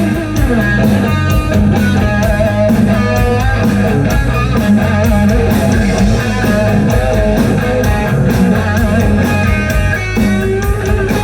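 Heavy rock band playing an instrumental break with no vocals: an electric guitar lead with bent, wavering notes over distorted guitar, bass and steady drums and cymbals.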